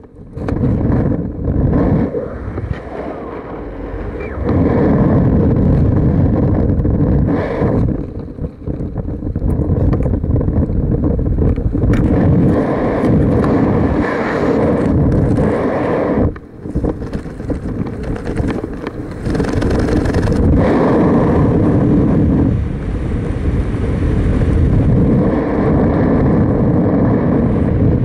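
Wind buffeting the camera's microphone during parachute canopy flight: a loud, low rushing that swells and eases, with brief lulls a few times.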